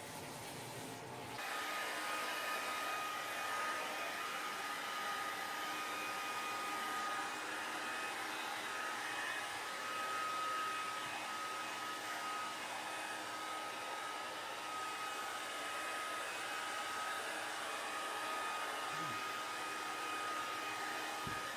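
Handheld hair dryer blowing steadily with a thin, even whine, drying a dog's wet coat after a bath. It starts about a second in.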